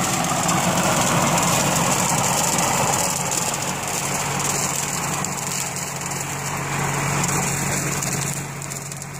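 John Deere tractor engine running steadily while it tows a Side Winder SW84 trail-type rotary cutter, whose blades are spun by one of its tires turning a heavy iron wheel rather than through a gearbox.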